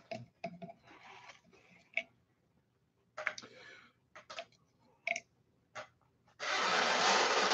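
Scattered light clicks and taps of small objects being handled on a workbench. Near the end comes a louder rushing noise lasting about a second.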